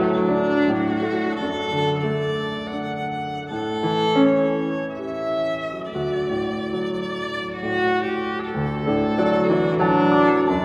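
Violin and grand piano playing together: the bowed violin carries a melody of long, held notes over the piano's accompaniment.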